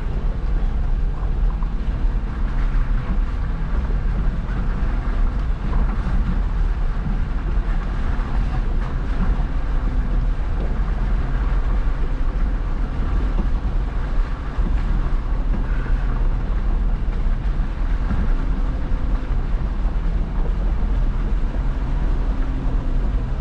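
Off-road vehicle's engine running steadily at low speed, a constant low rumble with no revving.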